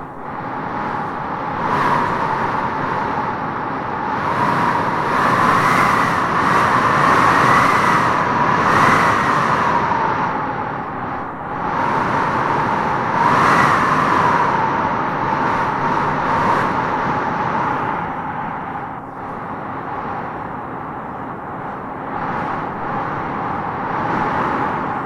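Howling wind blowing in gusts, a whistling tone over a steady rush that rises in pitch as each gust swells, strongest a few seconds in and again about halfway through.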